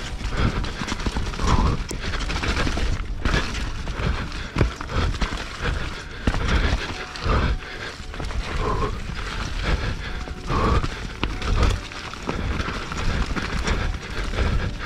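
YT Jeffsy full-suspension mountain bike descending a rough, muddy, root-covered enduro trail at race pace: continuous rattling and clattering of the bike, with frequent irregular knocks as the wheels hit roots.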